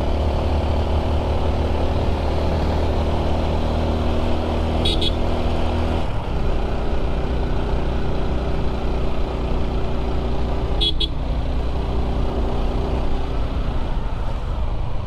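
Motorcycle engine running steadily while riding, with wind and road noise; its engine note changes about six seconds in. A horn gives two short double toots, about five and eleven seconds in.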